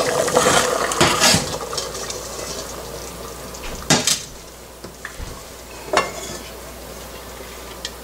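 Wooden spatula stirring stewed goat meat in an open aluminium pressure cooker over a soft hiss, then sharp clinks of metal cookware about four and six seconds in.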